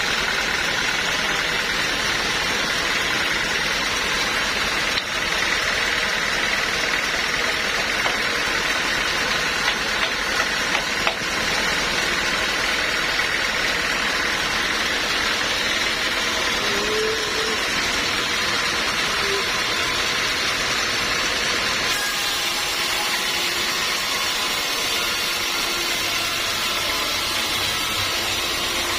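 Sawmill machinery running steadily, with a few light knocks early on and a change in its sound a little after twenty seconds in.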